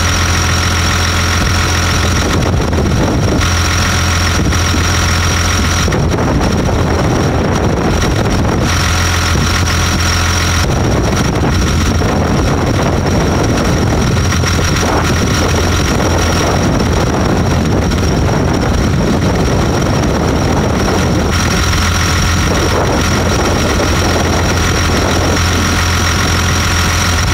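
NyVraa willow harvester and tractor engines running steadily under load while cutting and chipping willow, with a steady high-pitched whine over the low engine hum.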